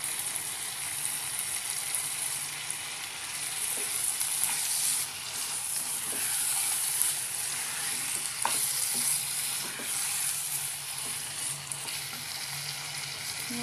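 Chickpea masala sizzling in a non-stick pan while a spatula stirs and scrapes through it, the chickpeas being fried down in their spices; a few sharper clicks of the spatula against the pan.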